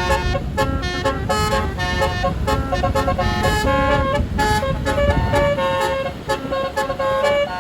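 Tour bus's 'telolet basuri' melody horn, a bank of many trumpets, playing a quick tune of short pitched notes. A low rumble runs underneath and drops away about two-thirds of the way through.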